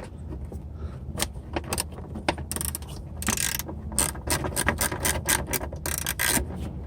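Socket ratchet clicking in quick runs while bolts are loosened, with scattered sharp metal clicks between the runs.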